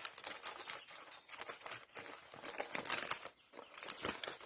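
Packaging of a set of piston rings crinkling and rustling as it is handled, with many small crackles.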